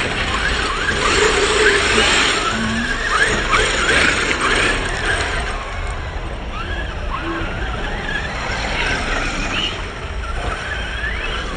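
Several radio-controlled cars running on a track, their motors whining in many short rising and falling pitches as they speed up and slow down.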